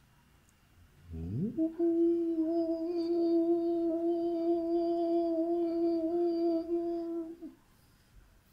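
A man humming: he slides up into one long steady note about a second in and holds it for about six seconds before it stops.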